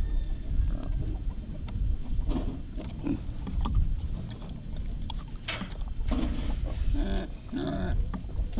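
Pigs in a pen grunting, the short grunts coming thicker from about five to eight seconds in, over a steady low rumble.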